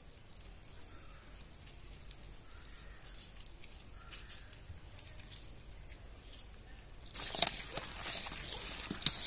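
A bare hand squishing and turning raw chicken pieces in ground masala and lemon juice in a large metal bowl: a wet, clicking squelch that starts about seven seconds in. Before that there are only faint small ticks and drips as a lemon half is squeezed over the meat.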